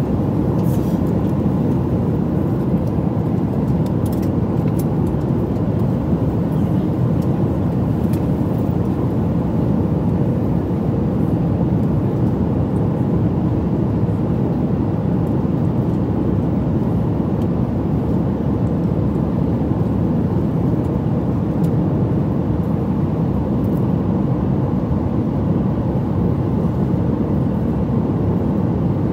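Steady cabin noise of a Boeing 737 MAX 9 in flight at high speed: an even, low rumble of engines and rushing air.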